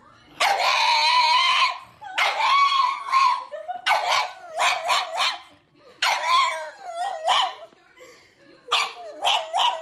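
Pug vocalizing in high, wavering whines and howls: two long drawn-out calls in the first few seconds, then clusters of short yelps.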